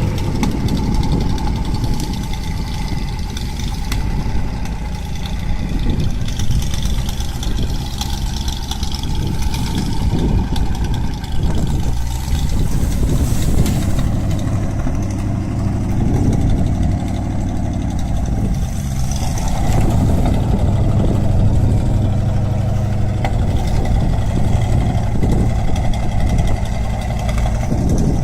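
Engine-driven machinery running steadily, its low engine hum varying a little with load.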